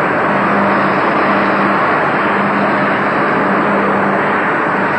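Steady machinery noise in a rail workshop, an even rushing sound with a low hum under it, holding level throughout.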